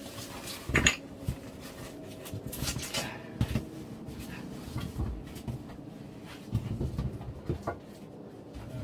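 Scraping, rustling and irregular knocks of a person clambering and squeezing through a tight rock passage, clothing and gear rubbing against stone, with one sharp knock about a second in.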